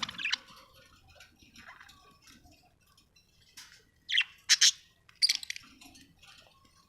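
Budgerigar chirping in short, scattered calls. The loudest is a quick cluster of three chirps about four to five and a half seconds in.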